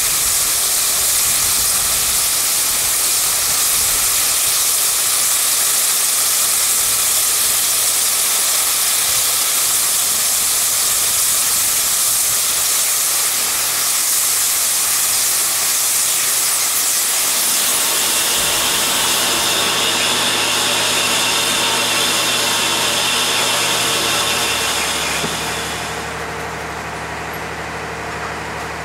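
North Borneo Railway's steam locomotive, a Vulcan Foundry 2-6-2 tank engine, standing at the platform and blowing off steam in a loud, steady hiss. Near the end the hiss stops, leaving a quieter steady hum.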